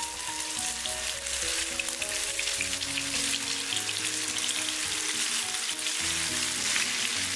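Egg-coated tofu slices sizzling and crackling in hot oil as more pieces are laid into the pan, over background music.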